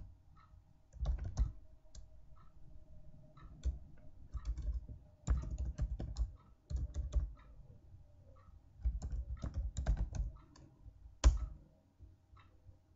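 Typing on a computer keyboard: keystrokes in short irregular bursts with pauses between them, and one louder keystroke about eleven seconds in.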